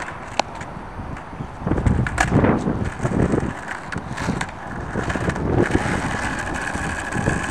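Skateboard wheels rolling over asphalt, an uneven rumble that starts about two seconds in, after a sharp clack of the board near the start.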